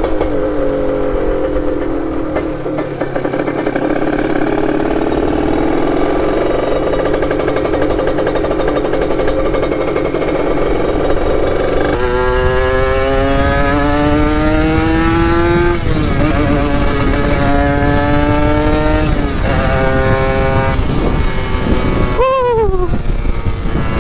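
Yamaha RX-King's ported 135 cc single-cylinder two-stroke engine under way. It runs steadily for the first half, then about halfway in it revs up through the gears, its pitch climbing and dropping back at each of several shifts.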